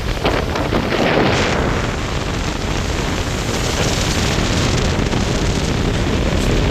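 Strong wind buffeting the microphone, over the steady rush of surf breaking on the beach.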